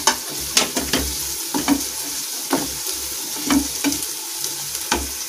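Peas, onion, ginger and green chillies sizzling in hot oil in a nonstick frying pan while a wooden spatula stirs them, with a steady hiss and repeated short scrapes and knocks of the spatula against the pan.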